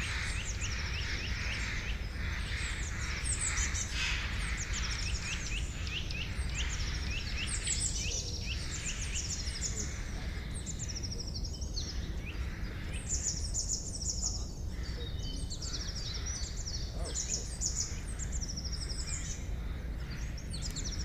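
Forest songbirds chirping and singing over one another in many short, rapid notes, with a steady low rumble beneath.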